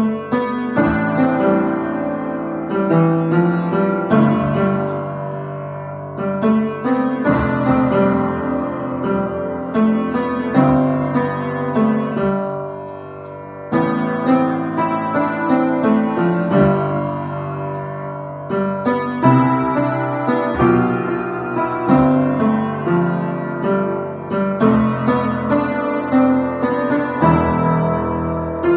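A piano being played: chords and a melody in several phrases, each starting with a loud attack and dying away before the next begins.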